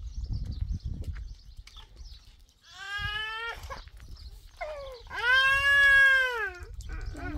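A goat bleating twice: a call of about a second, then a longer, louder one of about two seconds.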